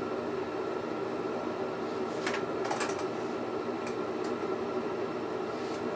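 Steady hiss of an oxygen-propane lampworking torch flame burning, with a constant low hum under it. A few light clicks come between about two and six seconds in.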